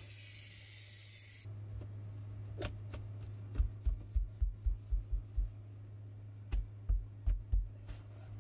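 An aerosol spray can hisses and stops about a second and a half in. Then come two quick runs of soft, dull thumps and a few light clicks as a luxury vinyl plank strip is handled and pressed into place, over a steady low hum.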